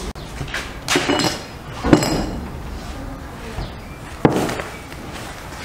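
Dough being kneaded and knocked against a wooden board, giving a few dull thumps about a second in and again a little past four seconds. Near two seconds there is one sharp, ringing clink, like a dish or utensil being knocked.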